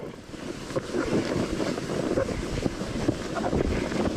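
Sled sliding downhill over snow, a rough scraping hiss, with wind buffeting the microphone. It grows louder over the first second.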